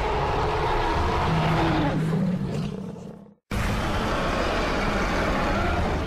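Film sound effect of a Spinosaurus roaring: two long, low roars, the first fading out a little past three seconds in and the second starting straight after a brief silence.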